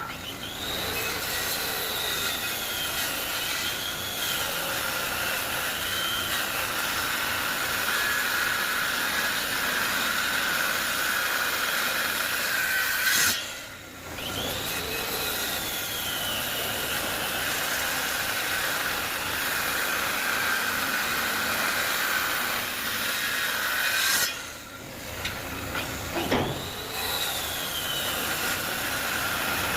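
Electric woodworking power tool running and cutting wood with a steady motor whine. It drops off briefly twice, about halfway and again about four-fifths of the way in, and picks up again each time.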